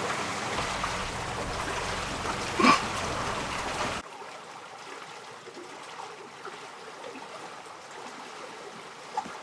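Steady rushing of water along a sailboat's hull under sail, as an even hiss. It drops abruptly to a quieter hiss about four seconds in, and a brief pitched sound cuts in just before the drop.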